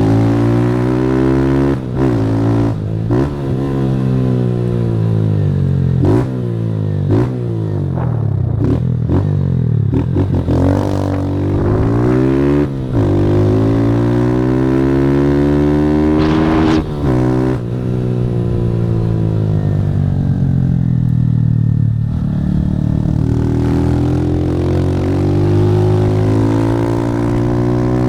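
Motorcycle engine through a Fortuna Trioval aftermarket exhaust, revving up and dropping back again and again as the bike accelerates hard through the gears. There are short breaks in the sound at the shifts.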